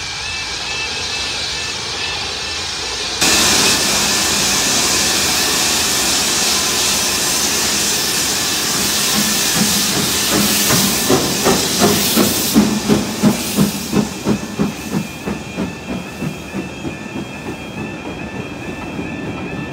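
BR Standard Class 4MT tank engine 80078 passing over a level crossing with its carriages: a loud hiss of steam starts suddenly about three seconds in, then the wheels click over the rail joints in a quick, even rhythm as the coaches go by. The crossing's warbling two-tone alarm sounds beneath it.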